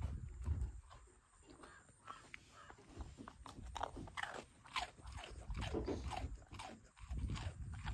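Dog chewing and crunching biscuits: a run of short, crisp crunches, coming thicker in the second half.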